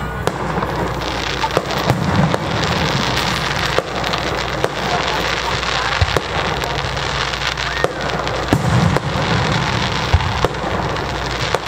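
Aerial firework shells bursting in a display, a continual run of bangs and crackle.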